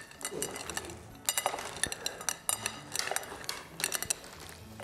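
Ceramic dinner plate clinking repeatedly and irregularly, short ringing clinks as hands dig into the food heaped on it.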